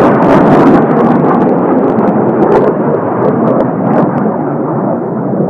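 Kawasaki T-4 jet trainers' twin turbofans, a loud rumble as the aircraft pass, slowly fading and losing its higher hiss as they move away.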